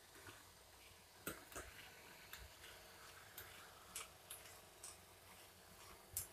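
A metal spoon stirring milk in a heavy-bottomed pan, knocking and scraping against the pan in faint, irregular clicks, about eight in all.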